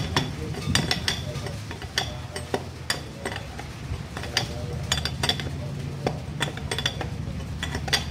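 A 36 mm steel open-end spanner clinking against a tractor's front-wheel hub nut as it is fitted, turned and refitted to tighten the nut, in short irregular metallic clicks over a steady low hum.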